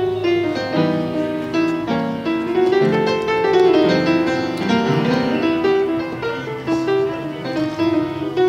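Solo piano played live on a keyboard, a steady run of chords and melody notes changing every fraction of a second.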